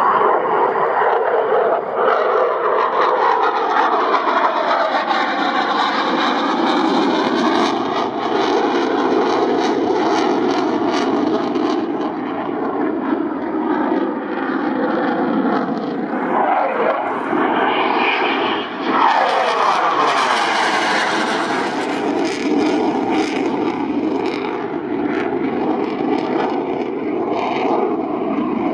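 Eurofighter Typhoon fighter jet's engines roaring loudly and continuously during a display, with a sweeping, phasing whoosh as the jet passes overhead about two-thirds of the way in.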